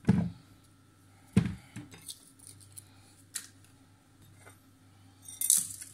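Ingredients being put into a multicooker's inner pot: two dull thuds, one right at the start and one about a second and a half in, then a few light knocks and a short clatter near the end.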